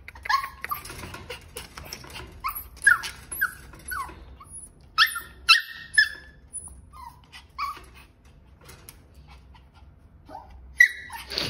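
Small puppy whining and yipping in short, high, bending calls, many in quick succession over the first six seconds, then fewer and fainter.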